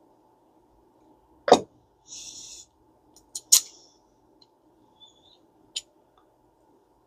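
Sharp clicks and taps of small metal spinning-reel parts being handled and fitted together, loudest about one and a half and three and a half seconds in, with a brief rustle between them and a few faint ticks after.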